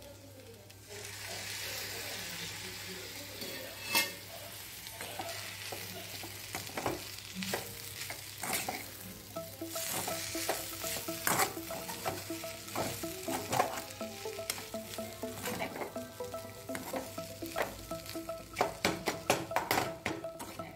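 Noodles and fried fish pieces sizzling as they are stir-fried in a metal pan. A metal spoon or spatula scrapes and knocks against the pan, and the strokes come faster in the second half.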